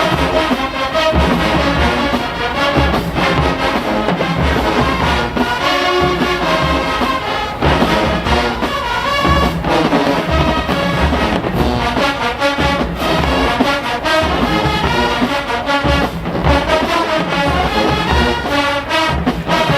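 Show-style marching band playing loudly: brass horns carrying the tune over a drumline with regular bass drum hits.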